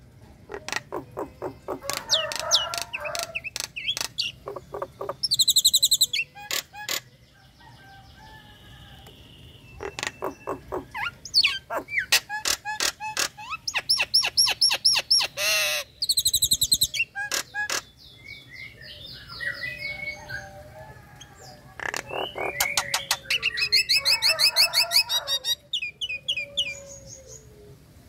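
Common myna (jalak nias) chattering and singing in three long bouts: fast runs of clicks and rattles mixed with whistled notes and harsh, gurgling calls, with short pauses between the bouts.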